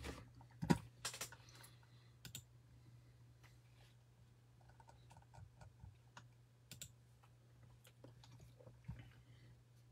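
Scattered light clicks and taps over a steady low hum, with the sharpest clicks in the first two seconds.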